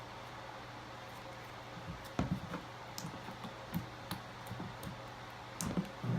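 Slime being handled and squished by hand, giving a scatter of soft squelches and small sharp clicks and pops from about two seconds in, over a steady low hum.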